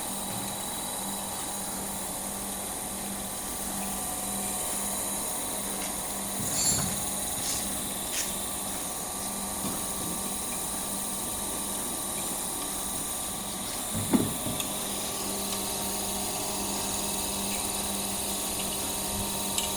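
Electric-motor-driven floating fish-feed pellet extruder running steadily with a constant hum. A few brief knocks sound over it; the loudest comes about fourteen seconds in.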